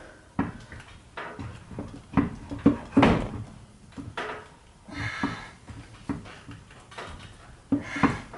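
Irregular clunks and knocks as a Subaru H6 engine hanging from a shop crane is shoved and shifted against the transmission to line it up, with the loudest knocks about two to three seconds in and a short rasping sound about five seconds in.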